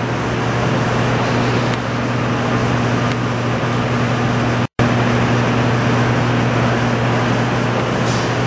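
Steady drone of machinery at the bottom of an underground tunnel shaft: a low hum with a few steady tones above it, cutting out for an instant a little past halfway.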